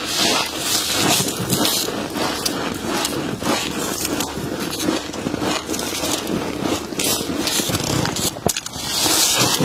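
Frost crunching and scraping close to the microphone: a continuous dense crackle, louder and brighter near the end.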